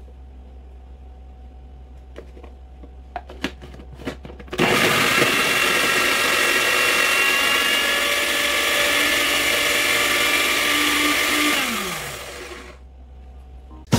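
A few light clicks, then an electric food processor's motor runs for about seven seconds, chopping garlic, ginger and fresh oregano. It then winds down with a falling whine and stops.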